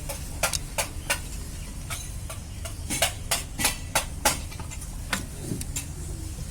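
Irregular metal clicks and knocks, about fifteen of them and thickest in the middle, as the gear changer assembly of a Maruti Suzuki Alto 800 gearbox is worked into place on the transmission housing.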